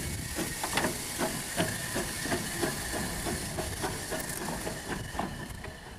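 Standing steam locomotive, a 1908 Orenstein & Koppel 0-4-0 tank engine, hissing steam steadily with a faint high tone, over irregular knocks.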